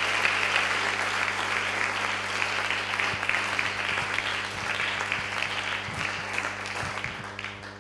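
Lecture-hall audience applauding steadily, dying away near the end, over a steady low electrical hum.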